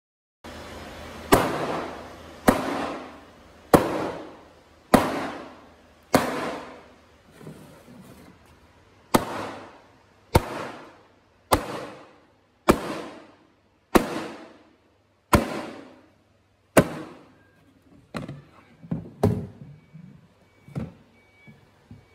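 Blue plastic stackable industrial crate (model 5510) slammed hard against a concrete floor again and again in a strength hit test: about a dozen sharp cracks, roughly one every second, each with a short ringing tail. Near the end come lighter, quicker knocks and clatter as the crate is handled.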